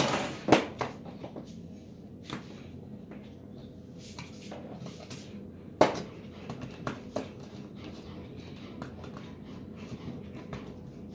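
Scattered plastic clicks and knocks of a thermal overload relay being pushed onto a motor-starter contactor and the units being handled on a table, the sharpest knock about six seconds in.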